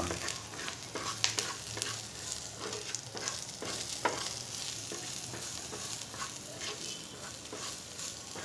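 Garlic, green chillies, cumin and curry leaves frying in oil in a pan, sizzling steadily while being stirred (sautéed), with scattered clicks and scrapes from the stirring.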